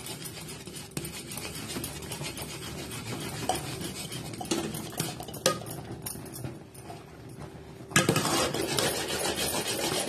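Metal spoon stirring thick, cooking rice-flour dough in an aluminium pot, scraping and clinking against the pot with a few sharp clinks. The scraping turns louder and steadier about eight seconds in.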